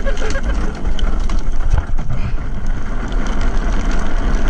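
Drift trike rolling fast over wet asphalt while being pulled, a steady noise of tyres on the wet road with heavy wind rumble on the microphone.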